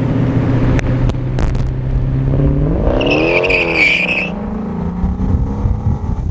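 Sports car engine running steadily, then revving up and back down about halfway through, with a brief high squeal over the rev, before the engine pulls up again under acceleration.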